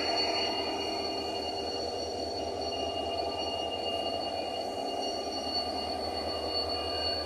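WDP4D diesel-electric locomotive running with a steady hum, a low rumble beneath it and a constant high-pitched whine above it.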